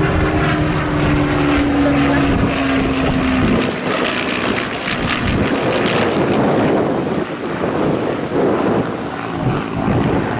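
Supermarine Spitfire flying by, its piston engine droning with a pitch that sinks slightly over the first few seconds, then turning rougher and noisier.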